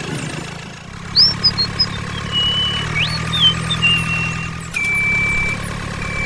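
A small motor running with a steady low hum. Short high chirps come over it from about a second in, and a steady high whistle sounds near the end.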